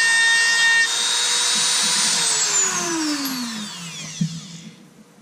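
Small Dremel rotary tool with a felt polishing bit running at speed with a steady high whine while buffing a piece of slag. About two seconds in it is switched off and the whine falls steadily in pitch as the motor spins down, dying out near the end.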